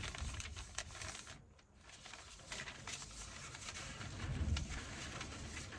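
Paper rustling and crinkling in short bursts as sheets are handled and folded, with a dull low rumble underneath.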